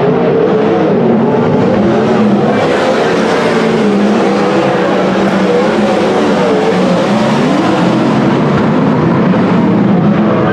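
Several winged 410 sprint car V8 engines running together on the dirt oval, their pitches rising and falling as the cars circle.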